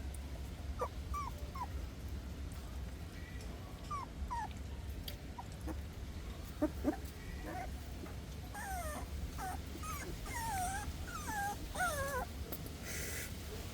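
Newborn puppies whimpering: short, high squeaks, scattered at first and coming thick and fast in the last few seconds.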